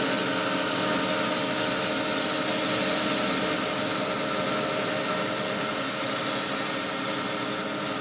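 Horizontal bandsaw mill sawing through a log: a loud, steady cutting noise with a strong high hiss over an even hum of the mill's motor.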